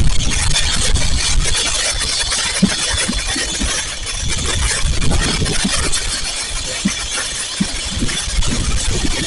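Fireworks going off: dense, continuous crackling over a low rumble, with scattered dull thuds.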